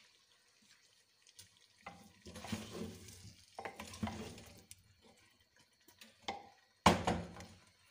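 A spoon stirring cauliflower and potatoes in a clay cooking pot: a run of scraping, shuffling strokes from about two seconds in, then a single sharp knock near the end, the loudest sound.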